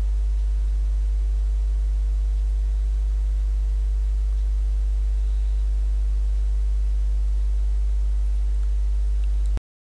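Loud, steady electrical mains hum with a stack of higher overtones, picked up in the recording chain. It cuts off suddenly to silence near the end.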